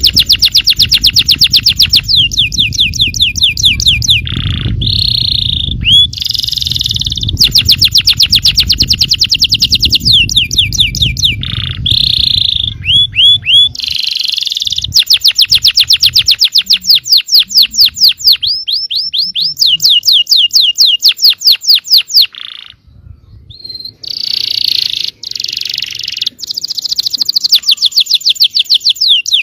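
Yellow canary singing a long, loud song of rapid trills, repeated fast sweeping notes broken by held buzzy notes and short whistles, with a brief pause about two-thirds of the way through.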